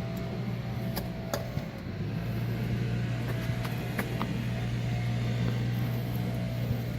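A steady low hum, with a few sharp metallic clicks from hand tools working on the brake assembly, two close together about a second in and a few more around the four-second mark.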